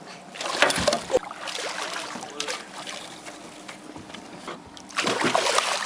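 River water moving around a fishing boat, a continuous rushing noise with two louder surges, one about half a second in and one near the end.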